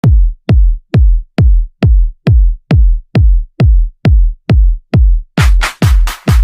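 Electronic bass ringtone: a drum-machine kick with a deep bass thump on every beat, about two beats a second. About five seconds in, a hissing noise layer joins each beat.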